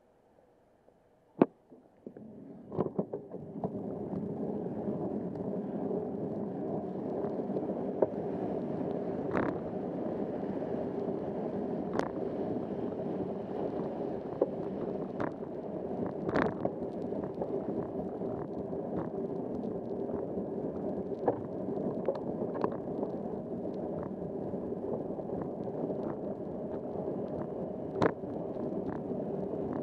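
Bicycle moving off from a stop on a rain-soaked road: near silence and a single sharp click at first, then a steady rushing noise of tyres on wet pavement and wind builds over the next couple of seconds and holds, with scattered sharp ticks throughout.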